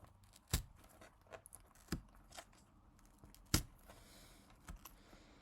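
Paper and cardboard album packaging being torn slowly and carefully by hand: quiet handling, broken by a few sharp crackles at irregular moments, the strongest about half a second, two seconds and three and a half seconds in.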